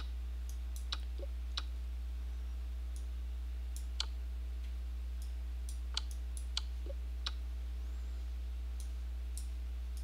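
Computer mouse clicking now and then, about eight sharp, irregularly spaced clicks, as chess pieces are moved on screen. A steady low electrical hum runs underneath.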